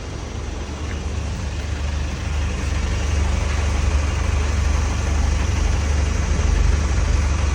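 GAZelle Next van's diesel engine idling with a steady low hum, growing louder over the first three seconds.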